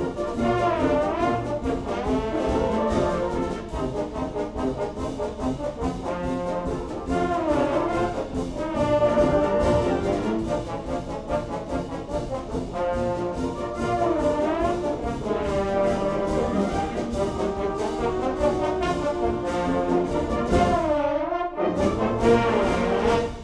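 A trombone quartet plays over a full brass fanfare band, with slide glissandi swooping up and down several times.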